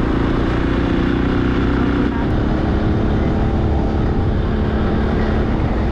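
Motorcycle engine running at a steady cruise, with wind and road noise over the microphone.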